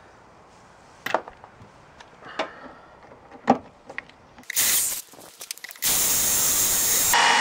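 Several sharp clicks and knocks of a drill and bit being handled, then a short burst of a power drill about halfway through. From about six seconds in the drill runs steadily, and its whine sharpens near the end.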